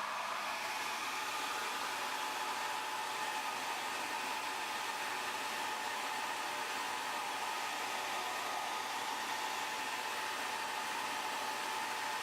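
Hot-air blower running steadily: an even rush of air with a faint whine from its fan, heating the cracked glass to soften its adhesive.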